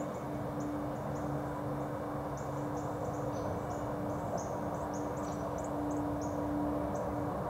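Outdoor field-edge ambience: many short, high chirps in quick irregular succession over a steady background murmur, with a faint steady hum underneath.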